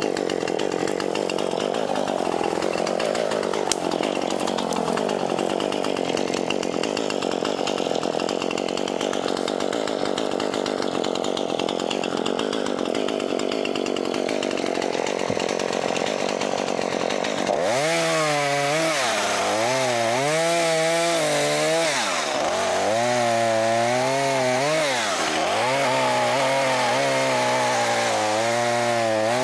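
Two-stroke chainsaw running and cutting through brush and small limbs. About two-thirds of the way through it changes suddenly to a closer, louder saw whose engine pitch rises and falls over and over as it revs through cuts.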